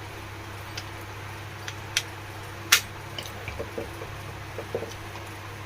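Small metal table-fan motor parts being handled and fitted back together during reassembly: a few sharp clicks, the loudest about two and a half seconds in, then a run of light taps and knocks, over a steady low hum.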